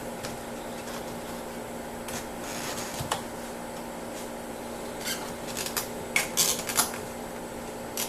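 Plastic interior door trim being handled and pushed back into place on a car door: scattered clicks and plastic rattles, bunching into a run of sharp clicks in the last few seconds, over a steady low hum.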